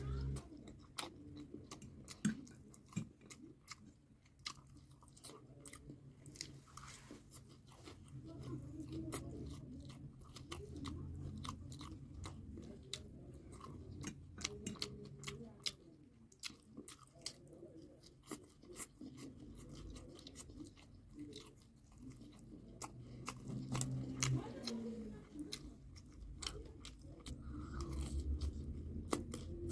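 A person chewing and crunching food, with many short sharp mouth clicks and smacks throughout.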